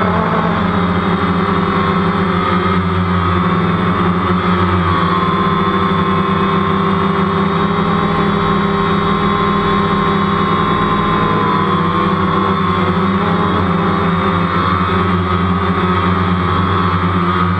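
DJI Phantom quadcopter's motors and propellers whining steadily in flight, heard close up from a camera mounted on the drone. The pitch drifts a little as the motors change speed.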